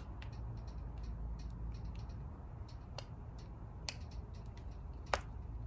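Small clicks and ticks of a tool cutting and picking at a jar's plastic safety seal, with three sharper clicks in the second half, over a steady low hum.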